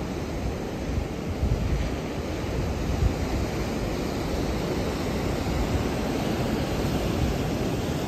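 Atlantic surf breaking over rocks and a sea wall: a steady roar of waves with no pauses, and gusty wind rumbling on the microphone underneath.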